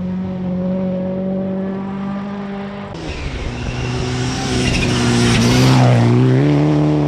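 Rally car engine held at high revs on a gravel stage, growing louder as the car arrives and slides through the bend with its tyres throwing gravel, then revs climbing as it powers away. The passing car is a Mitsubishi Lancer Evolution.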